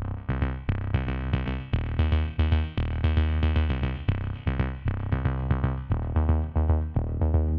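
Electronic background music: synthesizer chords over a heavy bass line and a steady drum-machine beat.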